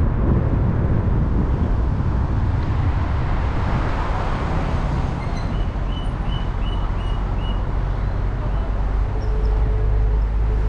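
Car driving through city traffic: a steady low rumble of road and engine noise. About halfway through comes a quick run of about six short high beeps, and near the end a steady low hum joins in.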